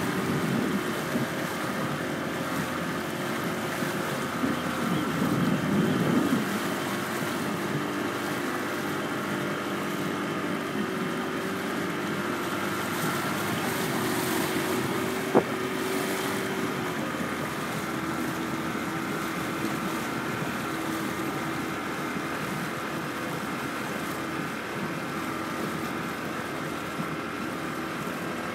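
A boat's motor running steadily with a hum that drifts slightly in pitch, over water noise and wind on the microphone. A heavier buffet of wind comes around five seconds in, and a single sharp click about halfway through.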